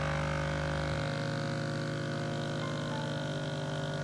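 MRS Micro Rain Systems standard misting pump running: a steady droning hum with many overtones. Its lowest part drops away about a second in.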